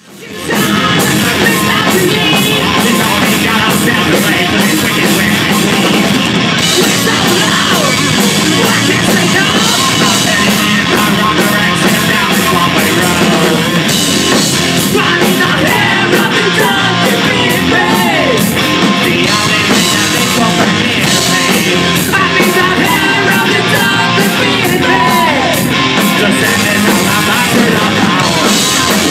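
Hard rock band playing live: electric guitar and band with a singer's shouted vocals, loud and dense throughout.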